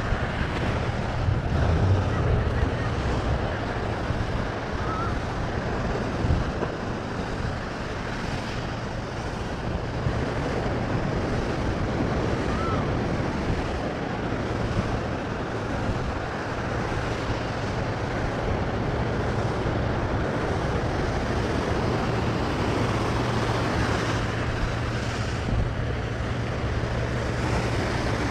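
Wind noise on the microphone over the steady wash of ocean surf breaking on a sandy beach.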